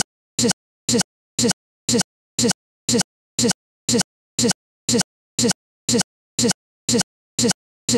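A split-second fragment of recorded sound repeating exactly twice a second, with dead silence between each repeat: a stuck, stuttering audio playback glitch.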